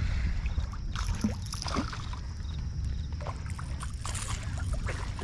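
Outdoor water-side background: a steady low rumble of wind and water sloshing, with a few faint clicks and taps scattered through it.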